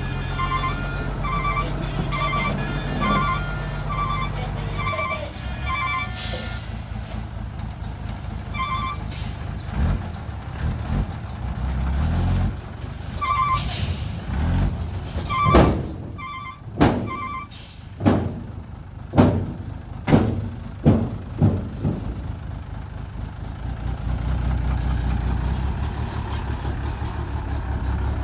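Heavy earthmoving equipment at work: a reversing alarm beeps about once a second over a low diesel engine rumble, then a run of loud sharp bangs and clanks comes in the second half, and the engine rumble swells again near the end.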